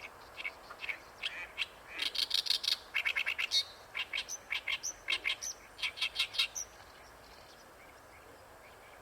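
Oriental reed warbler singing: a rapid run of short, repeated notes, loudest in the middle, that stops about two-thirds of the way through.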